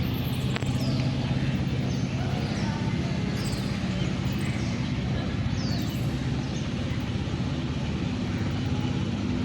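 Engine running steadily with a low hum, with a few short, high, falling whistles over it.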